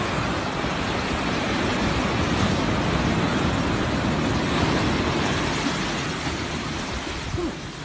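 Steady rushing of breaking surf washing up the beach, swelling and then easing off near the end.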